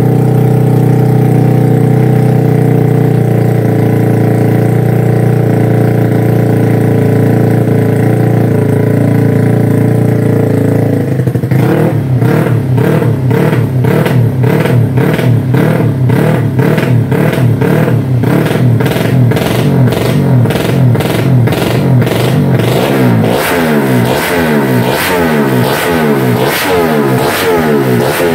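Race-tuned Honda GTR 150 motorcycle's single-cylinder four-stroke engine, fitted with an aftermarket racing exhaust, running at a steady speed on the stand, then from about twelve seconds in being revved with repeated throttle blips. In the last few seconds the revs rise and fall in quick succession.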